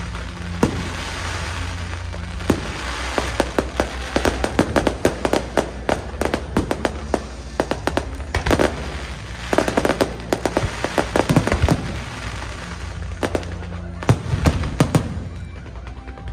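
Aerial fireworks display: rapid volleys of bangs and crackling bursts, coming in dense clusters with short lulls between them.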